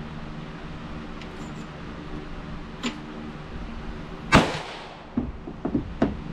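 A single shot from a Smith & Wesson Model 625-4 .45 ACP revolver about four seconds in, a sharp crack with a short ringing tail, followed by a few fainter clicks.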